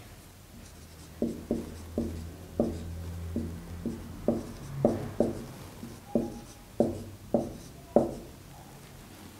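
Marker pen writing on a whiteboard: about a dozen short, sharp tap-and-stroke sounds as the tip strikes and drags across the board, the last one the loudest.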